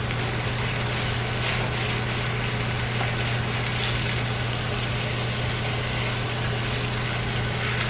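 Steaks frying in butter in a cast-iron skillet, a steady sizzle and hiss over a constant low hum, with the sizzle swelling slightly a few times as a steak is lifted and turned with a fork.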